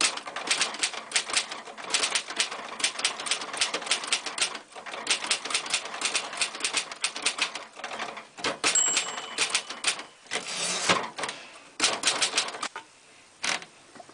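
1958 Royal manual typewriter, restored from heavy rust, being typed on at a fast rhythmic clatter of key strikes. About nine seconds in its margin bell dings once, and the carriage is returned. A few more keystrokes follow.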